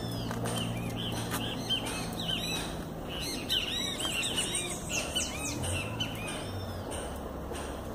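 Small birds chirping, many short rising-and-falling chirps overlapping, busiest through the middle, over a low steady hum.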